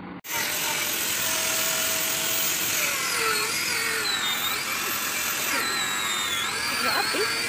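Electric angle grinder running at high speed, a high-pitched whine that sags in pitch twice as it is pressed into the work at a truck trailer's wheel, then picks back up.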